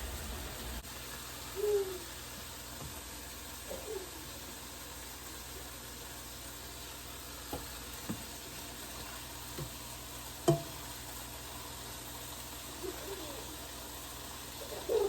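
Fish fillets frying in hot oil in a skillet, a steady sizzle, with a few short knocks of a utensil or pan around the middle.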